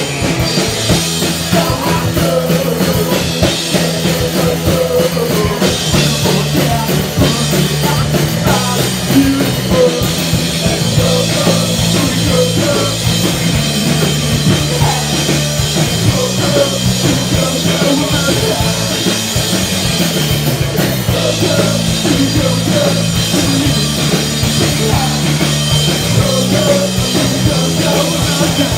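Punk rock band playing live: drum kit, electric guitar and bass guitar, with a singer at the microphone.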